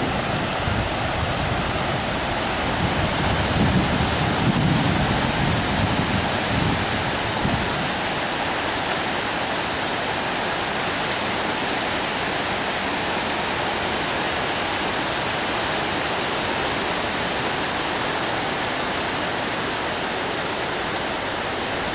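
Steady rush of a flooded creek running high and fast. Low gusts of wind buffet the microphone during the first several seconds.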